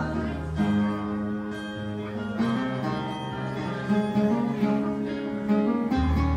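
Live acoustic guitar and keyboard playing an instrumental passage of a slow song, with plucked and strummed chords over held low notes and no vocals.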